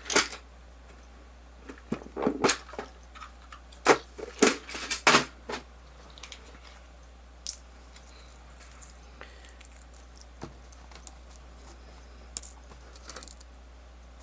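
A string of sharp clicks and light taps from small tools and watch parts being handled at a workbench during a watch battery change. The taps are densest about two to five seconds in, then thin out to a few faint ticks.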